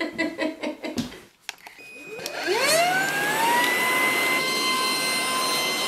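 Ultenic U12 cordless stick vacuum cleaner switched on: its motor spins up with a rising whine about two seconds in, then runs steadily with a high whine.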